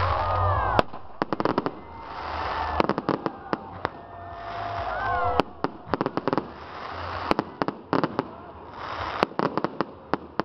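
Aerial fireworks going off: clusters of sharp bangs and crackles over and over, with a hissing swell building between the volleys.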